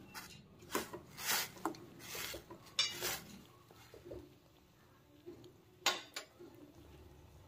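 A spoon knocking and scraping against the side of a stainless steel cooking pot as vegetables in water are stirred. The knocks are short and irregular: a cluster in the first three seconds, then two more about six seconds in.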